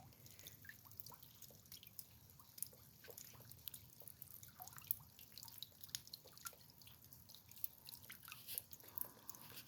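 Faint, irregular drips and small ticks of water falling in freezing rain.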